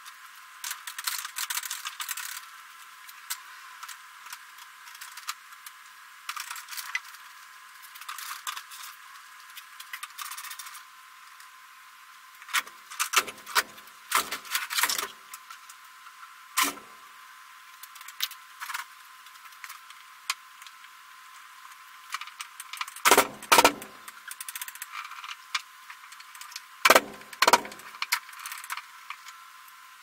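Metal garage door hardware being handled: light rattling and clinking with scattered knocks, and a few loud clanks in two groups in the second half.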